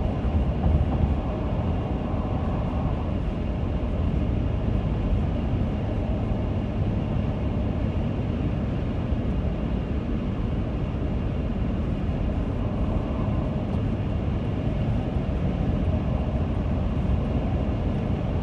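Steady wind and road noise inside the cabin of a 2017 Toyota Sienna minivan moving on the highway, heaviest in the low rumble; the owner considers the wind noise excessive.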